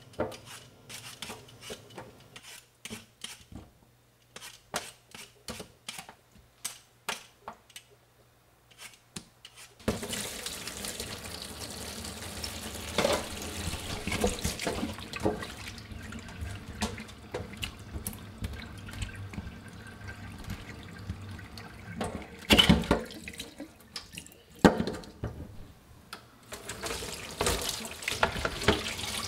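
A run of short, sharp scraping strokes, then a tap turned on about ten seconds in, water running and splashing into a stainless steel sink and a plastic basin, with a few louder splashes.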